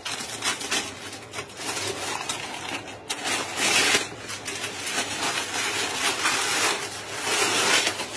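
Aluminium foil crinkling and tearing in irregular bursts as it is peeled off the rim of a biryani pot sealed for dum cooking. It is loudest about four seconds in.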